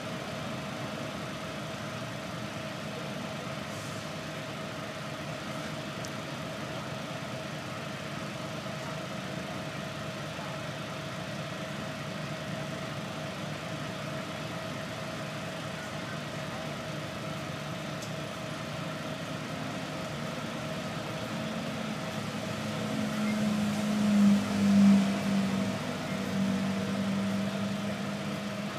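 Bus engine idling, heard from inside the bus: a steady hum with a faint constant whine. About three-quarters of the way through, a deeper engine drone swells louder for several seconds, then eases back.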